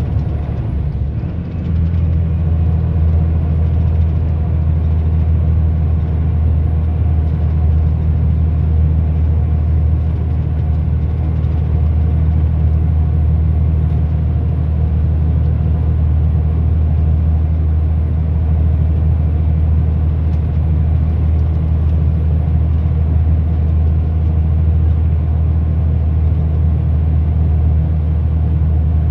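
Motor vehicle driving at road speed: a steady, deep engine and road drone that dips briefly about a second in.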